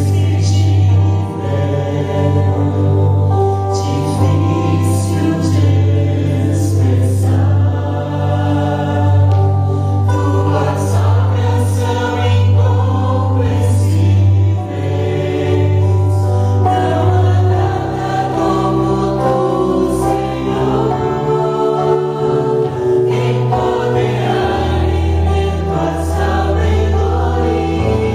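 Gospel worship song sung by a choir of voices over instrumental backing, with a strong held bass line.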